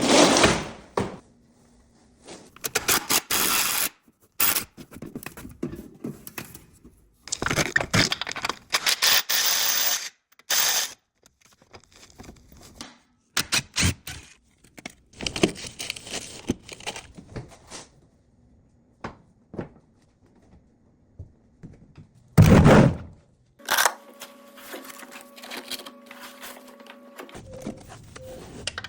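A string of short, abrupt clips of hands-on work on a car during an oil change: clanks, scrapes and thunks of tools and parts, with stretches of noisy rushing. A faint steady hum comes in for a few seconds near the end.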